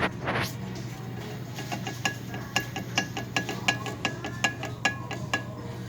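A run of sharp metallic clinks and taps, two or three a second at uneven spacing, each ringing briefly at the same pitch, over a steady low hum.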